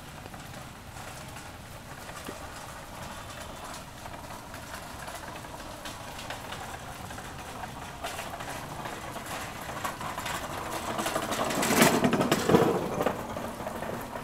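A motor vehicle passing close on a rain-wet city street, growing louder over several seconds to a peak near the end, then fading, over steady rain noise.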